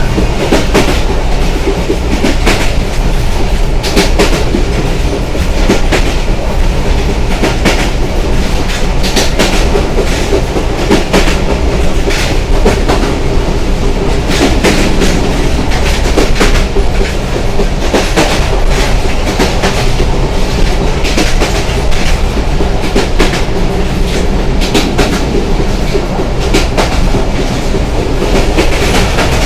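Simanta Express passenger train running on the track at speed: a steady heavy rumble with frequent sharp clicks and clatter from the wheels passing over the rails.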